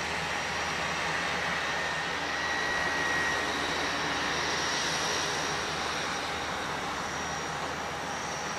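Airbus A320 jet engines running at the airport: a steady hiss with a thin high whine over it.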